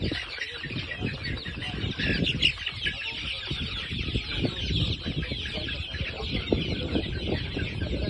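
A brood of young chickens in a brooder, many chicks peeping at once in a dense, continuous chorus of short high falling chirps, over a low rumble of handling or wind noise on the microphone.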